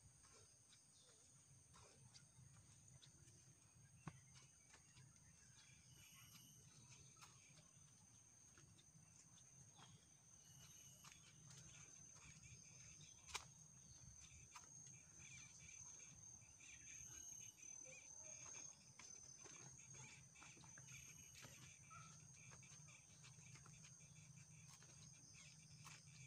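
Faint tropical forest ambience: a steady high-pitched insect drone, with a few short high chirps. Scattered light clicks of footsteps on the dirt trail run through it, with two sharper clicks about four seconds in and about thirteen seconds in.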